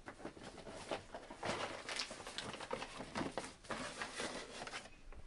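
Irregular rustling with many small clicks and taps, like things being handled at close range.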